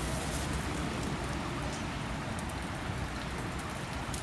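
Steady rain falling and dripping, with scattered light taps over a low rumble.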